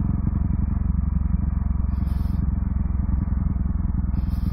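Husqvarna 701's single-cylinder engine running steadily at low revs while riding, with wind rush over the microphone.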